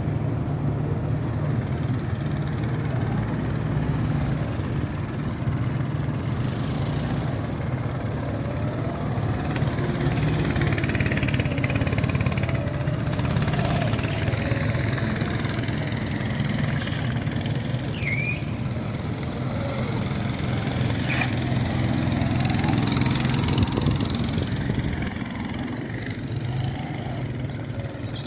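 Small go-kart engine running as the kart goes round the track, its pitch rising and falling as it speeds up and slows for the turns, loudest about eleven seconds in and again near twenty-four seconds before fading.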